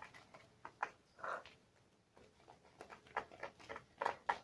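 Homemade slime being stirred and squished, giving irregular small wet clicks and squelches.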